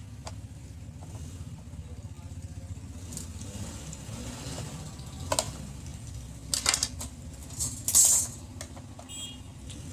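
A steady low hum with a few sharp clicks and knocks, the loudest a short hissing knock about eight seconds in.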